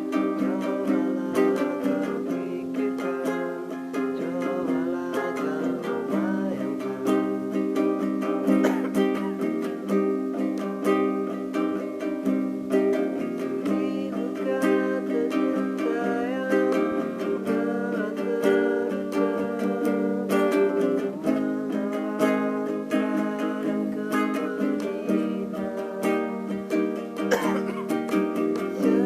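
An acoustic string instrument strummed in chords, keeping up a steady rhythm.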